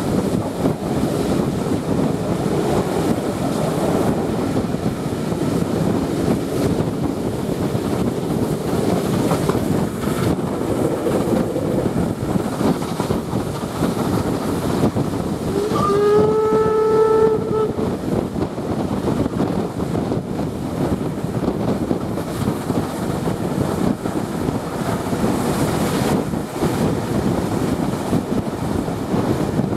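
Steam-hauled train running at speed, heard from an open carriage window: a steady rush of rolling and wind noise. About sixteen seconds in, the locomotive's whistle sounds once, a single steady note lasting about a second and a half.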